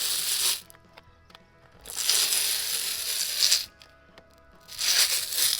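Old stock foam deck mat being peeled off a Sea-Doo GTX300's deck: three long ripping pulls as the adhesive lets go, each lasting about a second and a half, over background music.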